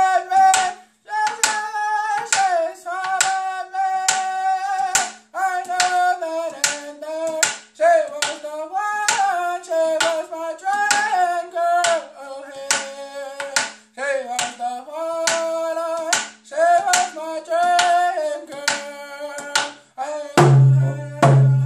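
A man singing a Cree round dance song in a high voice, with long held notes in phrases, while beating a hand drum with a beater in a steady beat. The drum and voice grow louder near the end.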